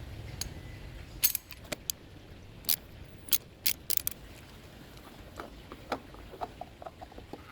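Sharp metallic clinks and clicks of an oil filter wrench working a car's oil filter loose, coming irregularly: several loud ones in the first four seconds, then fainter ones.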